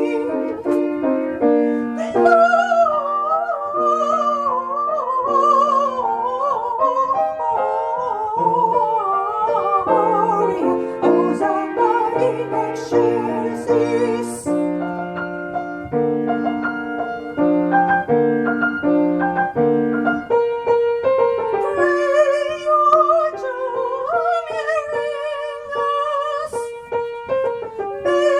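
Music: a high singing voice with vibrato carries a melody over piano chords. The voice drops out for a few seconds past the middle, leaving the piano, then comes back near the end.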